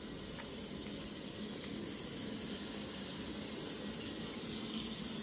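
Kitchen tap running steadily into a stainless steel sink.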